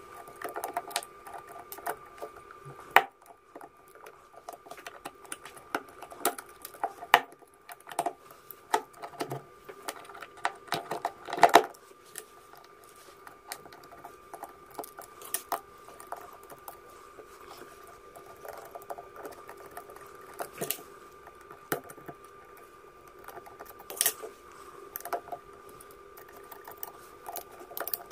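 Irregular clicks and taps of small plastic parts, wires and tweezers being handled as a cordless screwdriver's plastic housing is reassembled, the loudest a sharp clack about eleven seconds in. A steady faint hum runs underneath.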